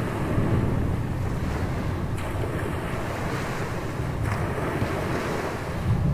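Surf washing onto a beach during a thunderstorm, with steady wind blowing across the microphone as a low rumble.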